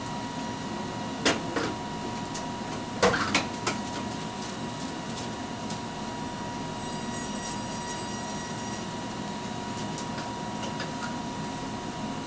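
Steady whirring of running Ampex quadruplex videotape machines with a faint constant tone, broken by a cluster of sharp clicks and clunks from their controls in the first few seconds and a few fainter clicks later.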